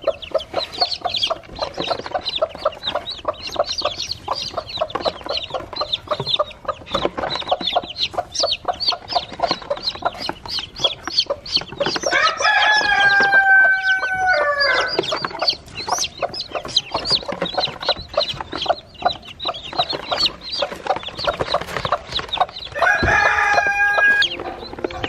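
Agitated broody hen clucking over her nest while her newly hatched chicks peep in a rapid stream. Twice, about twelve seconds in and again near the end, a chicken gives a long, drawn-out call.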